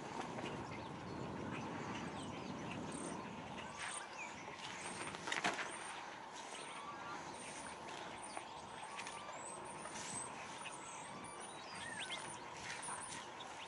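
Small birds chirping with many short, high calls over a steady low rumble of outdoor background noise, with one sharp knock about five seconds in.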